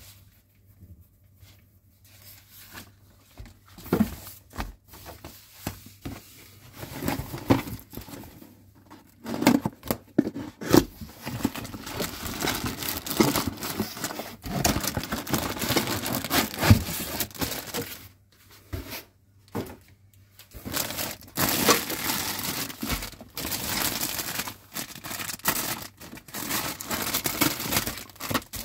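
Rustling and crinkling of packaging. Magazine pages are handled, a cardboard parts box is torn open, and clear plastic bags crinkle around moulded plastic parts as they are unwrapped, with scattered knocks and clicks. It is busier and louder in the second half.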